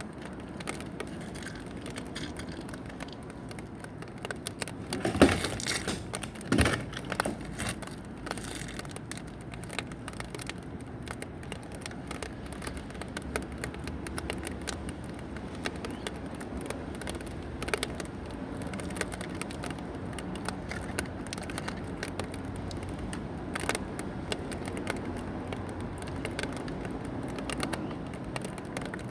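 Two sharp air-gun shots about a second and a half apart, over a steady background of small clicks and rustling handling noise.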